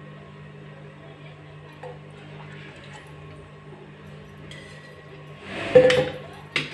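Low steady hum, then a loud clatter of kitchenware about five and a half seconds in, followed by a short sharp click near the end.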